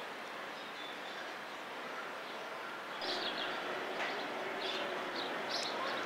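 Steady background noise, then from about halfway, small birds chirping in short, repeated high notes over it.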